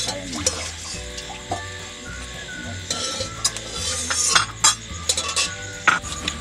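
Oil sizzling in a metal wok as pakoras fry, with a metal spatula scraping and clinking against the pan several times. The sharpest clinks come a little past the middle and near the end.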